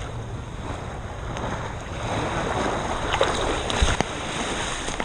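Wind buffeting and rustling on a GoPro strapped to a dog's back, over a steady rush of surf. A few light knocks come about three seconds in, and a sharper one follows just before four seconds.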